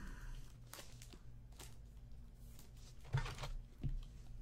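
Quiet handling of trading cards and plastic card holders on a table: a brief rustle a little past three seconds in and a soft knock just before four seconds, over a low steady hum.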